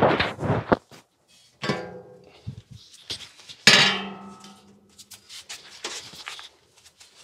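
A small metal gate is being swung on its hinges. There is a metallic clank with ringing tones, then a louder squeak that falls in pitch about three and a half seconds in, then lighter rattles of the metal.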